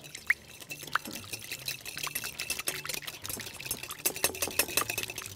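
Hand whisk beating egg and vanilla in a glass bowl: a rapid, steady clicking and scraping of the wire whisk against the glass through the wet mixture.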